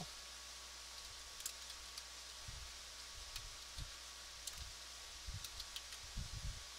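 Faint computer keyboard typing: scattered, irregular keystrokes over a steady hiss.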